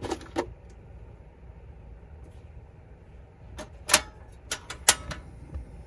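About six sharp metal clicks, between roughly three and a half and five seconds in, at a portable butane camp stove and the steel pot sitting on it as it is readied and lit, over a low steady rumble.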